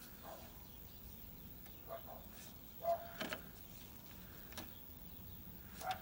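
Faint dog barks: a handful of short single barks spaced a second or so apart, over a low background hiss.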